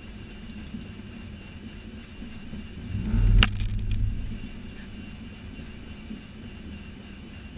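Steady low rumble in an Airbus A320 cockpit as the airliner taxis, with a heavy low thump and one sharp click about three seconds in.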